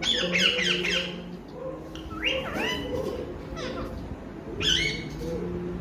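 Pet parrot chirping and whistling in three quick bursts of sweeping rising-and-falling notes.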